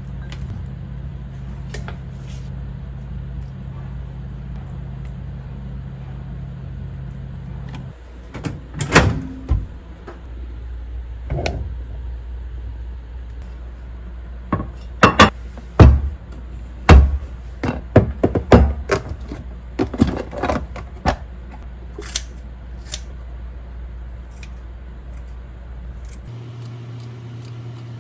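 Kitchen sounds: a steady low appliance hum, then a run of sharp clinks and knocks of dishes, containers and utensils being handled. Near the end the hum changes to a different steady tone.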